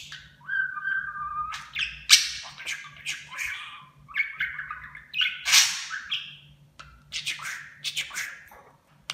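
Pet budgerigar warbling and chattering: a quick run of chirps and squawks, with a held whistled note near the start.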